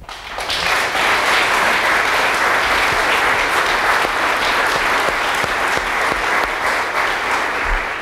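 Audience applauding: dense clapping that swells up within the first half second, holds steady, and fades out at the very end.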